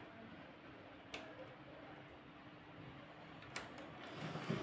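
Small scattered clicks and taps of wire connectors and plastic parts being handled on an opened HP LaserJet P1102 printer frame, with a sharper click about a second in and the loudest one about three and a half seconds in.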